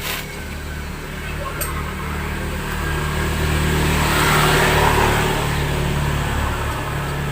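A motor vehicle passing by, its sound swelling to a peak about four to five seconds in and then fading, over a steady low hum, with a couple of brief clicks early on.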